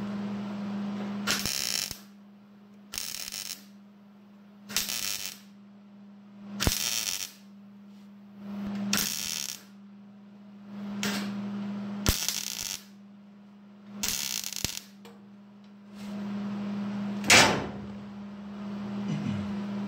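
Arc welder crackling in about nine short bursts, roughly every two seconds, as sheet steel in a truck bed floor is stitch-welded in short tacks. A steady low hum runs underneath.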